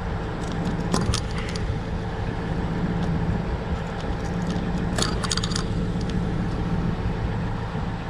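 An engine idling steadily, with short bursts of metallic clinking about a second in and again around five seconds in as tools work the steel belt lacing.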